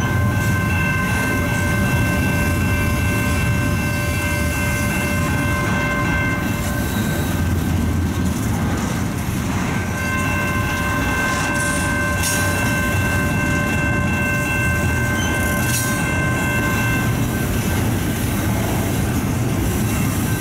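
A CN freight train rolling steadily through a level crossing, a continuous low rumble. Over it a long, steady high multi-tone sound rings twice, stopping for a few seconds about seven seconds in, with a couple of brief clanks later.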